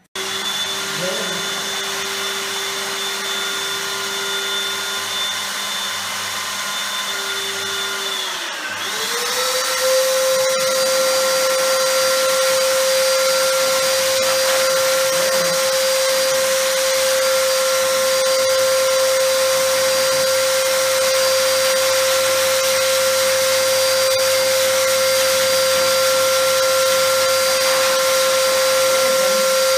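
Wall-mounted pet blow dryer running steadily, blowing air through its hose onto a wet dog's coat. About nine seconds in its whine dips briefly, then settles at a higher pitch and runs louder.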